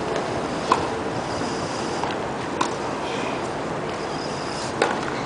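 Tennis ball struck by racquets during a rally: a few sharp pops about two seconds apart, the loudest about a second in and near the end, over a steady background hiss.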